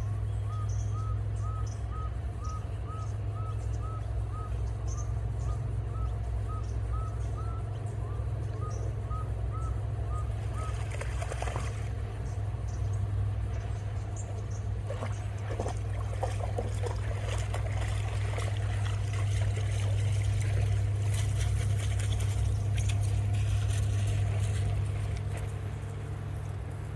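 Belgian Shepherd (Groenendael) dog paddling and splashing through shallow creek water, the splashing starting about ten seconds in. Under it runs a steady low hum, and for the first ten seconds a short chirp repeats about twice a second.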